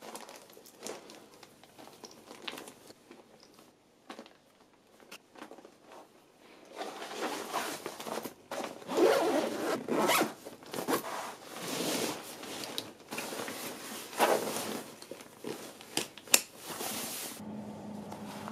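Quiet rustling of clothes and plastic bags being packed into a Quechua backpack, then the backpack's zippers being pulled shut in a series of louder zipping strokes.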